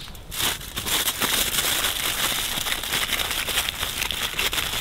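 Aluminium foil being crinkled and folded by hand.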